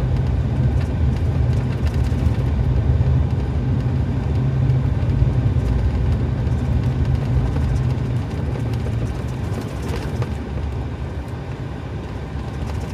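Engine and road noise heard inside a truck's cab while driving slowly through blizzard snow: a steady low rumble that eases slightly in the last few seconds.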